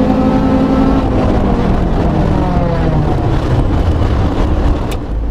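Honda four-cylinder engine held at high revs, then falling in pitch as the driver lifts off at the end of an acceleration run, with wind rushing past. A single sharp click comes near the end.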